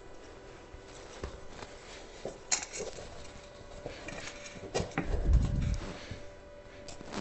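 Hand handling of an electric unicycle tyre and rubber inner tube on the wheel rim: scattered knocks, clicks and rubbing, with a louder dull thump about five seconds in.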